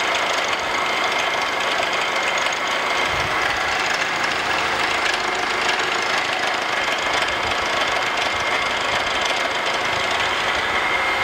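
Vertical milling machine running, its end mill cutting a bronze block as the table is fed across; a steady machining noise with a high tone running through it.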